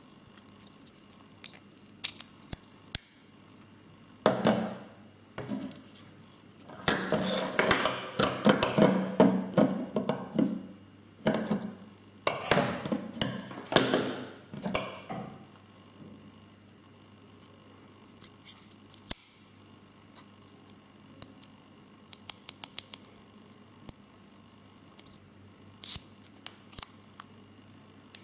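Unboxing handling of a Leatherman Crater C33 folding knife: dense rustling and scraping of packaging for several seconds, then scattered sharp clicks as the knife is handled.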